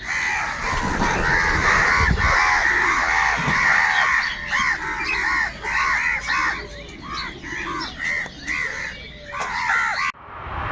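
Several crows cawing at once: harsh, repeated calls overlapping one another. About ten seconds in the calls cut off suddenly and a rushing noise begins.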